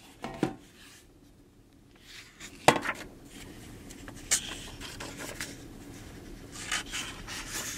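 A hardcover library book being handled: a sharp knock about two and a half seconds in as it is set down on a shelf ledge, then papery rustles as its cover and pages are turned.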